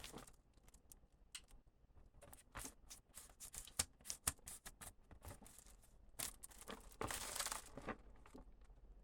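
Packaging of a socket set being handled and torn open, a long box and its plastic wrap. There is a run of faint crinkles, rips and light taps, with a longer rip lasting nearly a second about seven seconds in.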